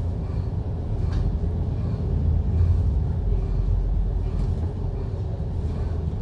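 MAN A95 double-deck bus running in service: a steady low engine and road rumble that swells slightly a few seconds in.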